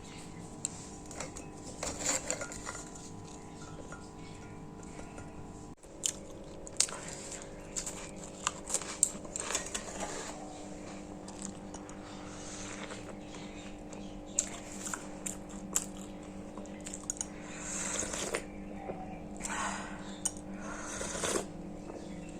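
Biscuits being bitten and crunched, a series of short sharp crunches and clicks over a steady background hum.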